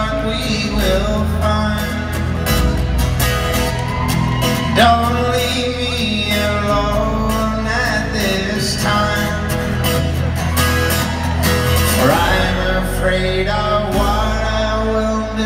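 Live folk-rock band playing in an arena: acoustic guitar, upright bass and fiddle over a bass line that changes note every second or so, with some singing in the mix.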